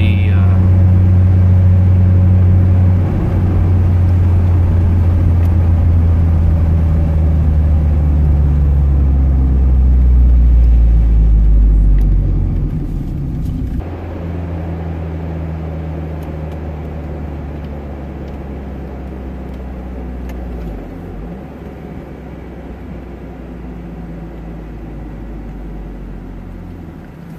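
NB Mazda Miata's four-cylinder engine, fitted with a full Roadster Sport 3 exhaust (Magnaflow cat, resonator and muffler), heard from inside the cabin while cruising at part throttle with a steady low hum. About halfway through the sound drops to a quieter, similar hum that slowly eases lower.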